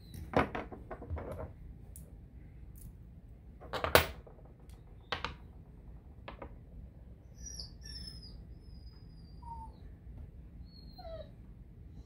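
Small metal lock-cylinder parts and tools clicking and knocking against a wooden desk while an Assa Twin Exclusive cylinder is taken apart, the loudest knock about four seconds in. From about seven seconds on, a series of thin, high whines that fall in pitch.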